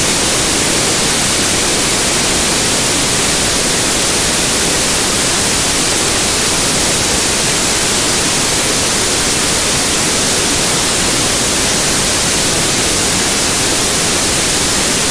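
A.D. Baker steam traction engine venting steam: a loud, steady hiss that starts suddenly and cuts off suddenly about fifteen seconds later, covering the engine's exhaust beats.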